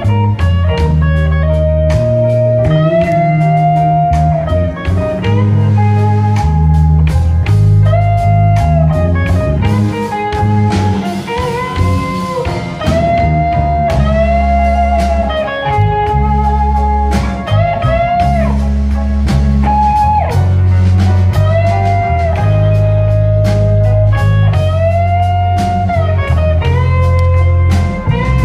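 Live blues band playing: an electric guitar lead with bent, wavering notes over a stepping bass line and drums.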